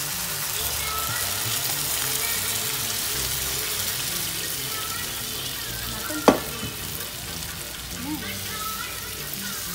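Curry base sizzling in a frying pan as boiled mutton and its stock are poured in from an aluminium pressure cooker and scraped out with a wooden spatula, a steady frying hiss. One sharp knock about six seconds in.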